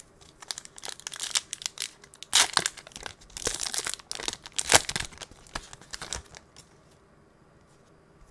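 Foil wrapper of an Upper Deck hockey card retail pack being torn open and crinkled by hand: a run of crackling rips lasting about six seconds, loudest in two sharp tears a little past two seconds and near five seconds in.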